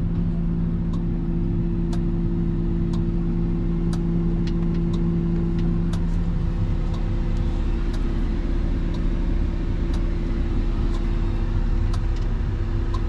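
Komatsu HM400-5 articulated haul truck's diesel engine idling in neutral, heard from inside the cab as a steady low drone. Its strongest tone weakens about halfway through. Faint ticks come about once a second.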